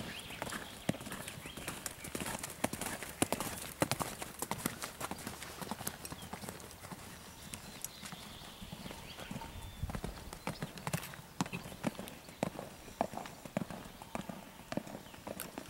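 Hoofbeats of a ridden Holsteiner mare moving around a sand arena: a continuous run of dull, repeated hoof strikes on soft sand footing.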